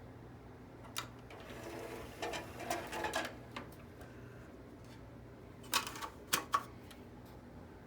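Onkyo DX-C200 five-disc CD changer mechanism working: a click, a rattling mechanical whirr lasting about a second and a half, then a quick cluster of sharp clicks near the end, over a steady low hum.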